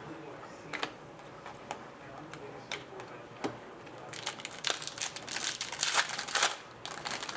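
Trading card packs and cards being handled: scattered light clicks and rustles, then a louder stretch of wrapper crinkling from about four seconds in that lasts a couple of seconds.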